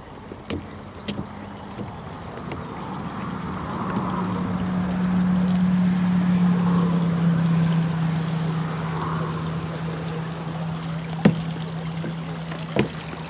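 A steady low engine drone swells in, peaks about halfway and fades a little, dropping slightly in pitch as it passes. A few sharp clicks sound near the start and near the end.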